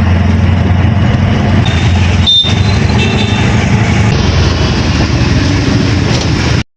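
Loud, steady traffic and vehicle noise with a strong low rumble, a few brief high tones near the middle, cutting off abruptly near the end.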